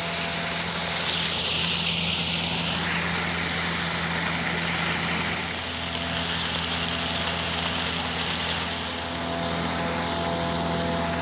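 Finn bark blower truck running at full throttle, its John Deere diesel driving the blower: a steady, loud engine-and-blower drone with a strong rush of air and mulch through the hose.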